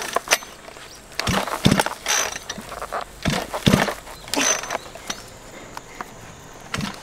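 Backpack brush cutter's small engine being pull-started several times on its recoil starter. Each pull cranks it briefly, but it does not catch and run.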